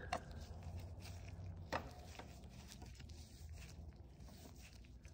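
Faint workshop handling noises over a low steady hum: a couple of light clicks and scrapes as a motorcycle fork stanchion is worked up into the upper yoke.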